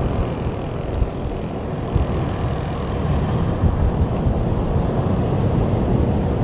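British Airways Boeing 777-200ER taxiing after landing, its General Electric GE90 engines giving a steady low rumble, mixed with wind buffeting the microphone.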